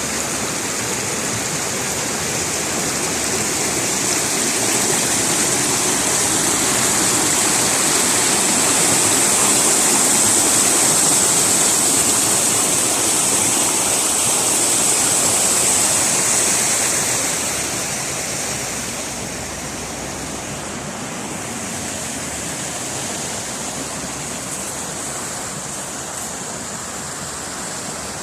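Running water rushing steadily, a continuous even hiss with no breaks, which drops somewhat in level about two-thirds of the way through.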